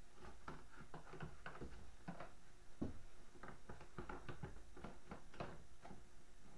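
Faint, irregular clicks and taps of a snowmobile's plastic surround panel being handled and pushed into place, its tabs clipping into the bumper.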